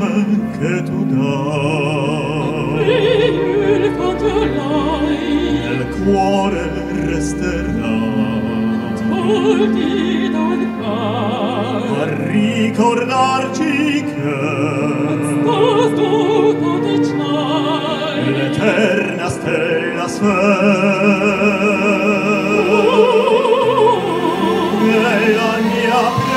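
Operatic singing with wide vibrato over a full symphony orchestra, with held low bass notes in the opening seconds.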